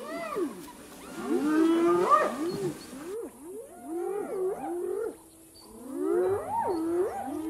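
Spotted hyenas calling: a run of overlapping pitched calls that rise and fall in arches, coming in clusters with a short lull about five seconds in.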